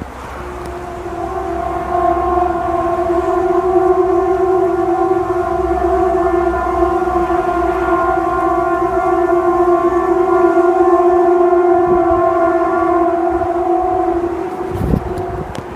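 Loud, steady horn-like drone held on two main pitches with higher overtones, swelling in over the first couple of seconds and fading out near the end. It is the kind of unexplained droning 'sky sound' that sounds like a distant siren or horn. A short low rumble comes just before it ends.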